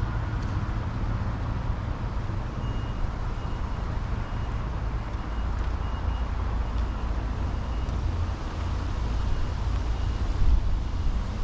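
A steady low rumble, with a faint high-pitched beep repeating about twice a second from a couple of seconds in until near the end.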